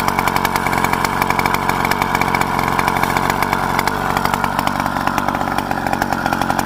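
Motorized bicycle's small engine running at a steady idle, a fast even buzz with no change in speed.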